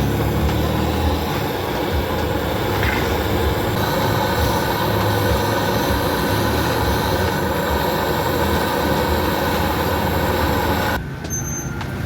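Steady mechanical noise with a low rumble. It drops briefly near the end, where two short high beeps sound.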